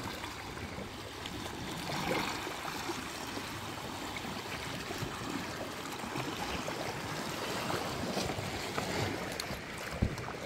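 Water sloshing and trickling along the hull of an inflatable kayak as it glides through calm water, with one sharp knock about ten seconds in.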